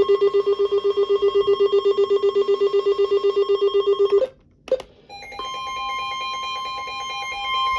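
Electronic alert tones: a low beep pulsing about ten times a second for roughly four seconds cuts off, and after a short gap a steady two-note tone starts, the Emergency Alert System attention signal that comes before a spoken warning.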